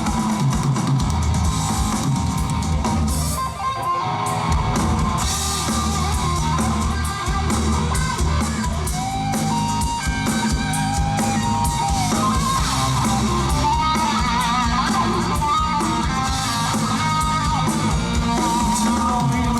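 Live rock band playing an instrumental break: a guitar carries the melody over drums, with no singing.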